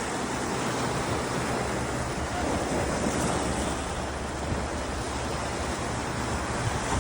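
Ocean surf washing steadily on the beach, with some wind rumbling on the microphone.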